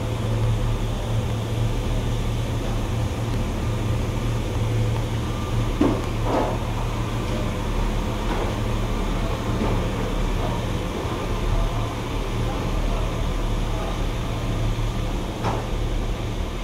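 Diesel multiple unit standing at the platform with its engine idling, a steady low hum. Faint passenger voices, and a sharp knock about six seconds in and another near the end.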